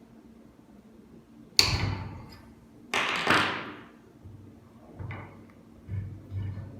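Two sharp knocks about a second and a half apart, then a few lighter knocks: parts of a manual crimping machine being moved and set into place while the bottle position is adjusted.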